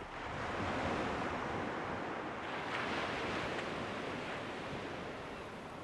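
Sea waves washing onto a shingle beach: an even rush that swells twice and eases off toward the end.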